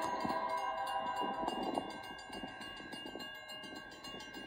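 Faint train horn: a chord of several steady notes that sounds for about the first two seconds, then fades out.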